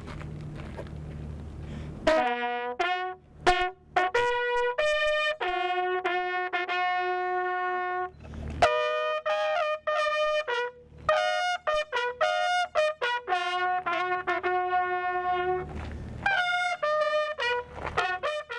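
Solo trumpet playing a slow ceremonial call of long held notes, starting about two seconds in. A low steady hum is heard before the trumpet starts.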